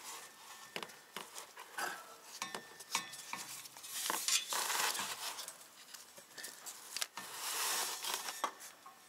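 A clear plastic fluid tube being handled and pulled from the transfer case fill point: irregular small clicks and clinks, with two short bursts of rustling hiss about four and seven seconds in.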